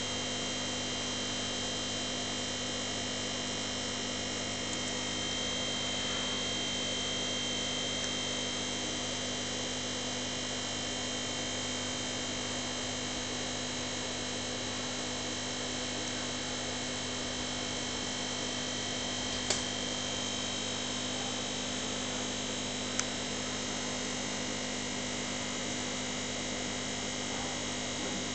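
Steady electric hum and hiss of an aquarium air pump driving a bubbling sponge filter. Two faint clicks in the second half.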